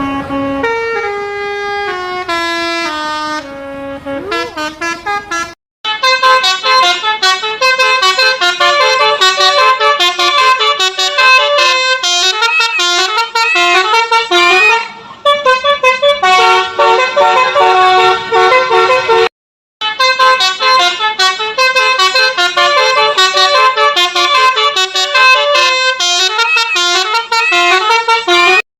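Telolet basuri musical bus horns playing melodies note by note: a slower falling tune first, then fast runs of notes. The sound cuts out briefly twice as one horn clip gives way to the next.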